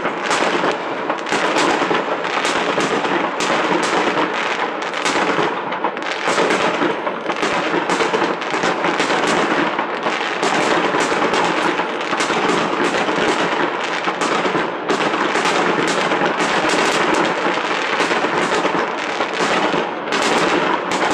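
Fireworks display going off in a dense, continuous barrage: many sharp bangs in quick succession from bursting aerial shells, with no let-up.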